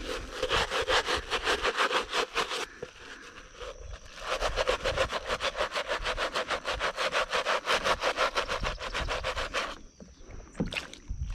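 Stiff-bristled plastic scrub brush scrubbing a wet, soapy canvas shoe in quick back-and-forth strokes, several a second. Two spells of scrubbing, with a short pause a little after two seconds in.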